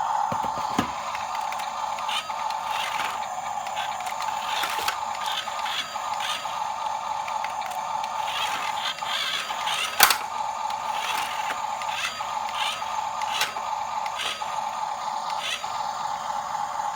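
Small electric motor and gearbox of a radio-controlled model running with a steady whine, with scattered clicks and scrapes and one sharp knock about ten seconds in.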